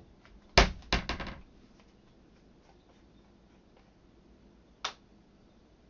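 Kitchen utensils and containers being handled while measuring dried spices: one sharp knock, then a quick run of rattling knocks, and a single click near the end.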